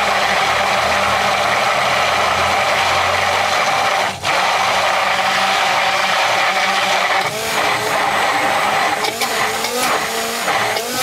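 Hand-held immersion blender running at speed in a glass of egg, oil, vinegar and mustard, emulsifying it into mayonnaise. The motor cuts briefly about four seconds in, and in the second half, as the mayonnaise thickens, its note turns uneven with repeated dips and wavers.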